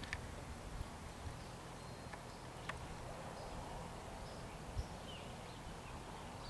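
Faint, muffled hoofbeats of a horse trotting and cantering on arena sand, over a steady low rumble.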